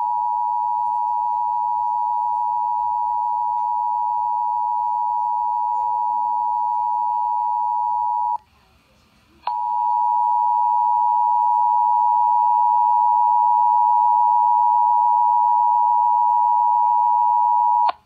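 Emergency Alert System attention signal, the steady two-tone alert of 853 and 960 Hz, played through an HD radio's speaker. It sounds for about eight and a half seconds, stops for about a second, then sounds again, slightly louder, for another eight and a half seconds, marking the start of a monthly EAS test.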